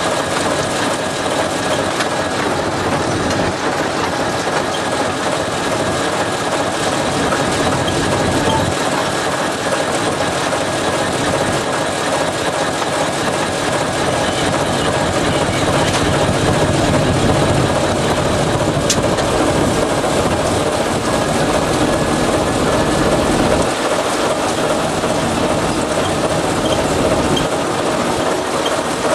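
TEM2 diesel shunting locomotive on the move, heard from its outside walkway: a steady mix of diesel engine noise and wheels running on the rails.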